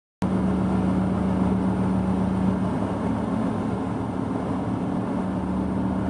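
Steady drone of a ship's engine-room machinery, a constant low hum over a dense rumble.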